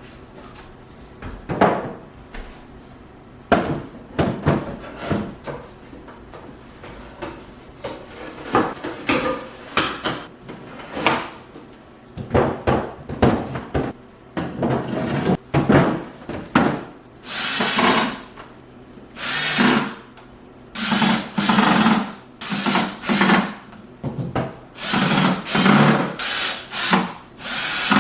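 Flat-pack dresser being assembled: knocks and rubbing of wooden panels, then repeated second-long runs of a power drill driving screws into the wood.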